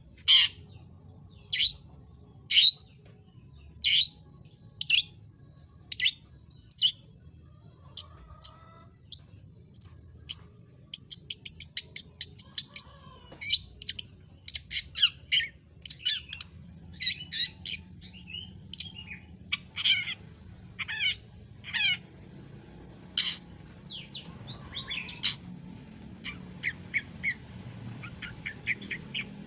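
Long-tailed shrike (cendet) calling with sharp, shrill calls about once a second. A quick run of short rapid notes follows, then a varied mix of calls and fainter chatter.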